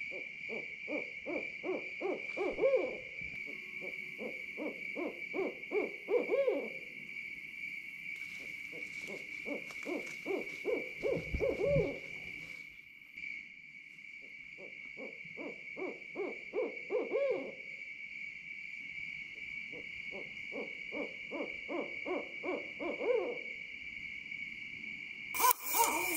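Owls calling: repeated runs of short hoots, each run speeding up and rising in pitch over two or three seconds, about every four to five seconds. Underneath is a steady high insect trill, and a short loud noise comes near the end.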